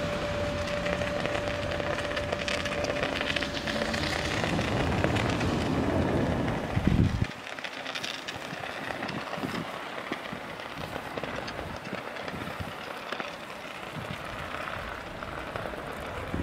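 A train passing close by with a deep rumble and a steady hum for the first few seconds. The rumble swells, then cuts off abruptly about seven seconds in, leaving a quieter steady hiss.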